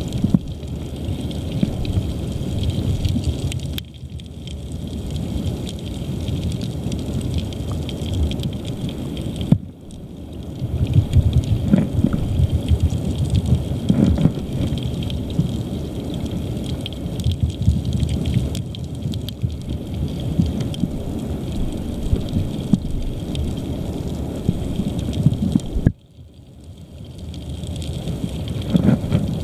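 Muffled low rumble and crackle of river current heard through an underwater camera housing on a cobble riverbed. The noise falls away suddenly three times, about 4, 10 and 26 seconds in, and builds back each time.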